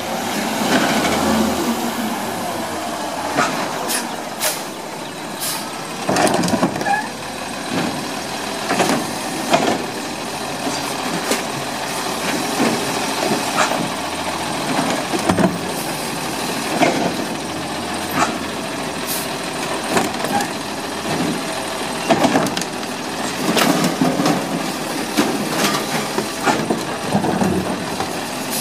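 Compressed-natural-gas garbage truck engine running while the Labrie Automizer automated side arm grabs and empties wheeled trash carts, with repeated knocks and clanks as the carts are handled.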